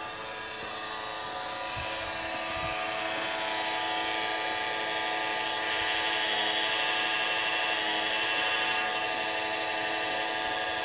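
Steady machine hum made of many held pitches, slowly growing louder, with no breaks or knocks.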